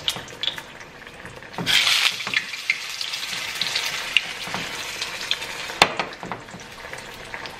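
Chicken frying in hot oil in a frying pan, a steady sizzle that flares up loudly about two seconds in as the chicken is moved in the pan, with a few sharp clicks of a utensil against the pan. The pan is on high heat and one side of the chicken is burnt.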